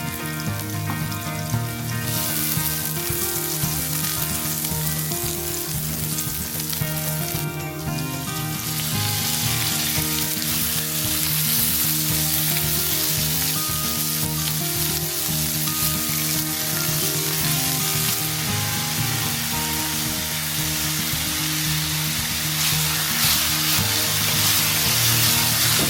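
Food sizzling as it fries in a pan, a steady hiss that grows fuller over the first few seconds, with background music underneath.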